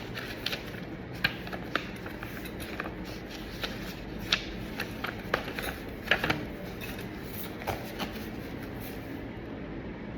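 Paper documents being handled: irregular rustling with scattered light clicks and taps, the loudest cluster about six seconds in.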